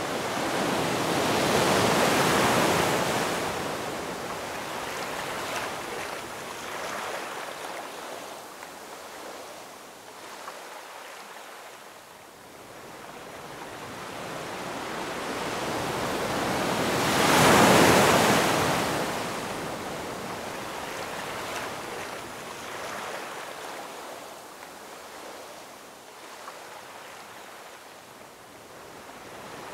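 Ocean surf, waves washing in and drawing back in slow swells, with two big surges: one near the start and a louder one a little past the middle.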